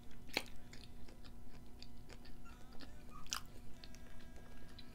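Close-miked chewing of food, with a few sharp wet mouth clicks scattered through it, the clearest about half a second in and near three and a half seconds in.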